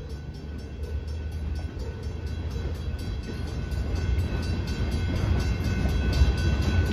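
Freight cars of a train rolling past over a grade crossing, a low rumble that grows steadily louder, with the crossing's warning bell ringing in quick, even strokes.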